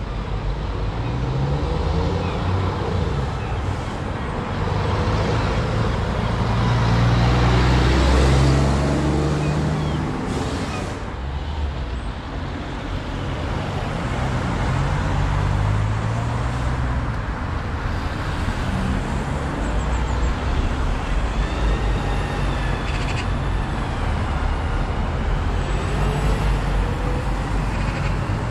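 Road traffic at a city junction: cars and buses passing, a steady mix of engine rumble and tyre noise that swells loudest about a quarter of the way through as a vehicle goes by. A faint high wavering tone sounds briefly about three-quarters of the way through.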